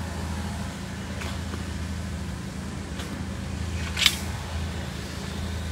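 A motor engine runs steadily with a low drone. A few short sharp clicks or clanks come over it, the loudest about four seconds in.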